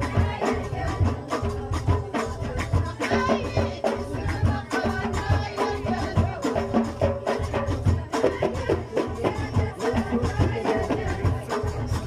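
Ahwach, Amazigh folk music of southern Morocco: frame drums beating a dense, steady rhythm under singing voices.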